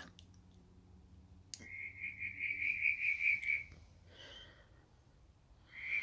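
Cricket chirping: a pulsed trill at one pitch, repeating several times a second. It runs for about two seconds, stops, and starts again near the end. A single sharp click comes just before the first trill, over a faint low hum.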